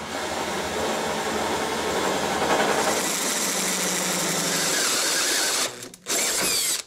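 Cordless Makita drill turning a hole saw through 1/8-inch steel plate: a steady grinding cut with the drill motor running. It eases off briefly near the end, starts again, then stops abruptly.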